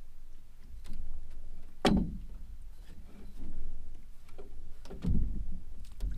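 Knocks and thumps on a small aluminum boat as a pike is fought and netted alongside. Two louder knocks come about two and five seconds in, with lighter clicks and rustles between them.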